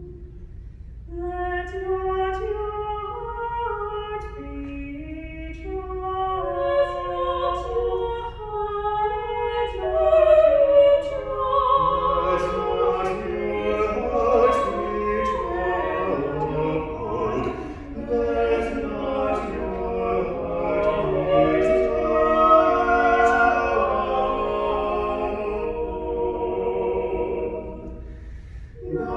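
Small mixed vocal quartet of women and men singing a choral anthem without accompaniment. A few voices come in about a second in, and the harmony thickens and grows louder from about ten seconds on. The sound eases briefly near the end.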